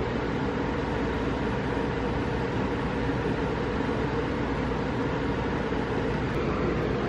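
Steady machine-like droning hum with a rushing noise, unchanging throughout.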